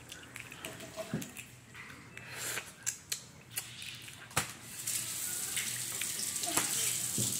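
Boiled crawfish being cracked and peeled by hand: a series of sharp cracks and clicks. About three seconds of steady hiss begins past the middle.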